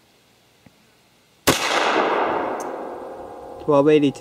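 A single .380 ACP pistol shot from a Beretta 84 Cheetah about one and a half seconds in: a sharp crack, then a long echo fading over about two seconds. A short pitched sound follows near the end.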